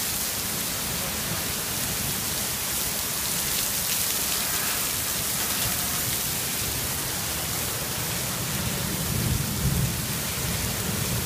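Heavy rain pouring onto pavement and a street as a steady hiss, with a low rumble underneath that swells about nine seconds in.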